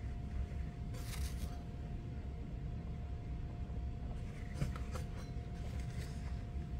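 Electric potter's wheel spinning, a steady low rumble with a faint steady whine, with soft rubbing of hands on wet clay now and then.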